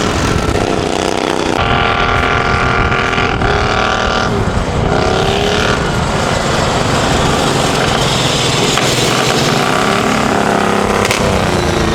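Riding lawnmower engines racing on lake ice, running hard, with their pitch rising and falling as they rev and pass. At times more than one engine is heard at once.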